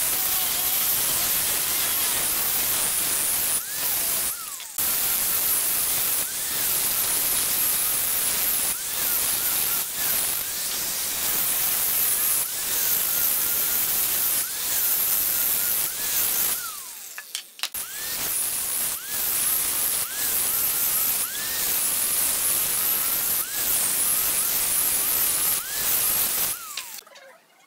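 Electric angle grinder with a sanding disc on a backing pad, running and sanding a pine board: a loud, steady hiss of abrasive on wood over the motor's whine, which bends up and down every second or so as the disc is worked along the board. It stops briefly about two-thirds through, starts again with a rising whine, and stops shortly before the end.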